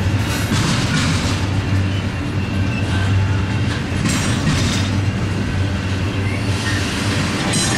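Double-stack intermodal freight train's container well cars rolling past at close range: a steady low rumble of steel wheels on the rails, with the clatter of the wheels swelling every few seconds.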